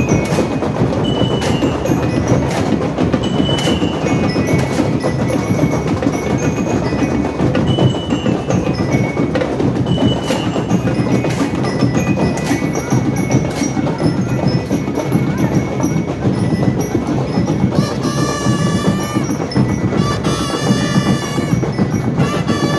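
Marching band playing: a dense, steady drum line with a bell lyre (glockenspiel) picking out a melody in short, bright notes. Near the end come a couple of held, higher pitched notes.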